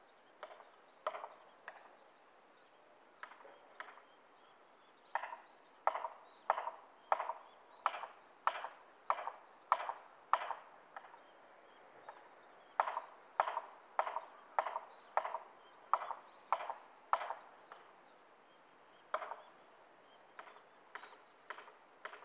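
Hammer blows on a felling wedge driven into the back cut to push the tree over, heard from a distance. The blows come as sharp, ringing knocks about one and a half a second, in two long runs with a few single strikes before and after.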